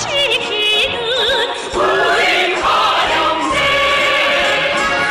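A woman singing in an operatic style with wide vibrato over musical backing, joined by a group of singers for a stretch in the middle.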